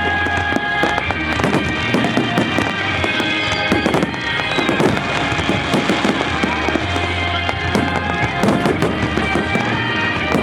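Fireworks bursting and crackling in quick, irregular succession over loud accompanying music.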